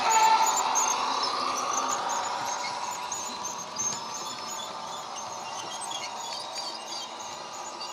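Model train running past and away: the EMD 8-645 diesel sound from the locomotive's ESU sound decoder and speaker fades as it moves off, over a light, regular clicking of the wagons' wheels on the track.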